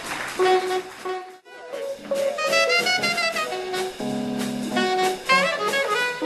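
Jazz band music with saxophone and brass playing a melody, with a brief break about a second and a half in.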